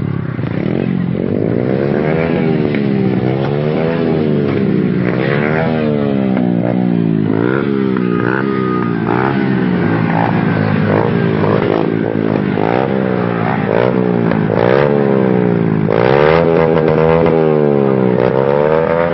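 Small motorcycle with a short aftermarket exhaust revved up and down over and over, the engine note climbing and dropping about every second or two. It gets a little louder near the end.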